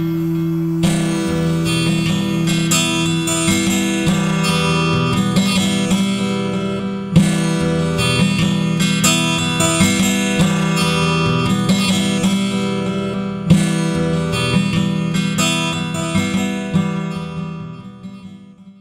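Background music with a steady beat of plucked chords, fading out over the last two seconds.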